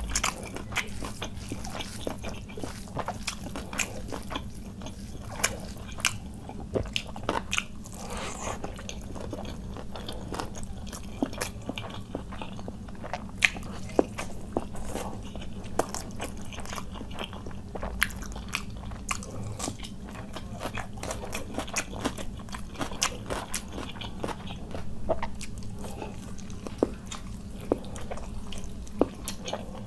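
Close-miked chewing of khichuri and chicken curry eaten by hand, with many sharp clicks throughout. Near the end, a bite into a chicken leg.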